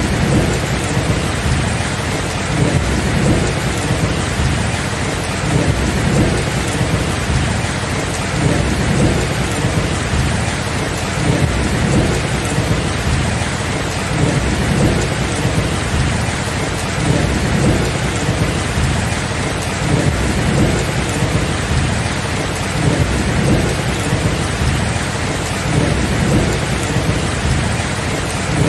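Steady heavy rain with low thunder rumbling underneath, swelling and easing without any sharp claps.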